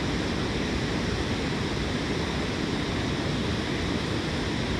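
Steady rushing water of a small stream tumbling into a pool, a constant even wash.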